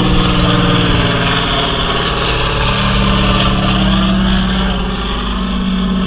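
A motor engine running loud and close, a steady hum that shifts up a little in pitch about halfway through.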